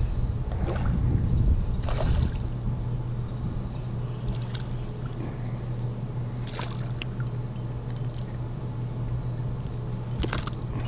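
Water lapping and sloshing against a fishing boat's hull, under a steady low hum, with a few light knocks and clicks.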